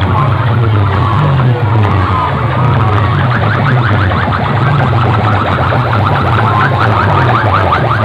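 Large DJ sound-system speakers playing at full volume: a fast, repeating siren-like sweeping effect, clearer from about three seconds in, over heavy pulsing bass.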